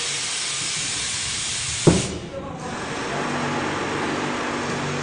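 Compressed air hissing from a pneumatic soap pusher. The hiss cuts off with a sharp knock about two seconds in, then gives way to a steadier, quieter air rush with a faint hum.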